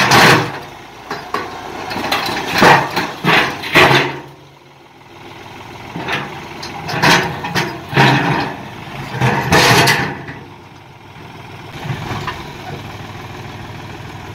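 New Holland tractor's engine running under load while its front loader bucket scrapes and grinds over rock and stony soil in several loud bursts, then the engine running alone near the end.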